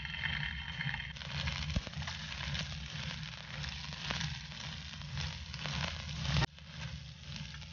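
Hot oil sizzling in a non-stick frying pan with minced garlic; about a second in, chopped onions and green capsicum go in and the sizzle grows louder, crackling with scattered pops. A sharp click sounds a little after six seconds in.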